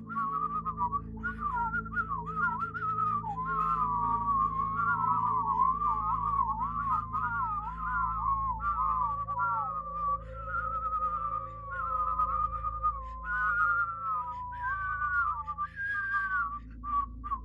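A whistled melody, one pure note wavering and sliding up and down with quick warbles, over a low steady drone. It all cuts off suddenly at the end.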